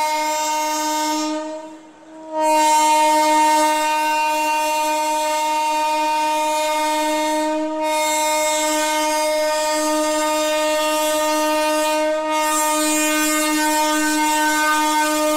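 Locomotive air horn of an arriving Indian Railways express train, held as one long steady note. It breaks off briefly about two seconds in, then sounds on without a pause.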